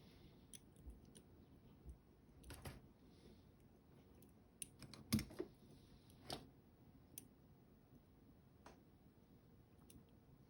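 Near silence with scattered light clicks and taps, the clearest a few seconds in and about five seconds in.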